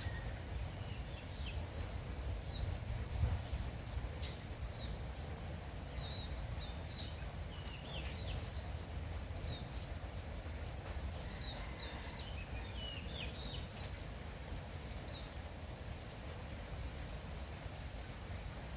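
Light rain falling, with small birds chirping and trilling in short, scattered calls over a steady low rumble.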